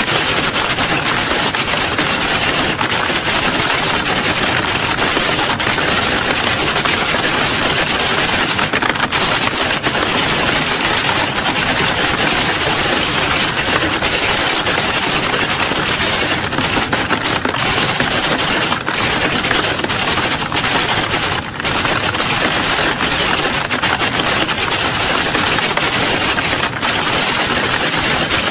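Dense, continuous clatter of many people typing at once: countless keystrokes overlapping into a steady rattle with no pauses.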